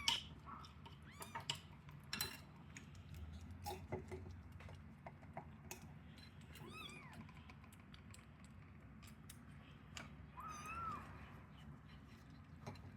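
Kittens meowing: short, high mews that rise and fall, one right at the start, one about seven seconds in and another about ten and a half seconds in, over faint scattered clicks and taps.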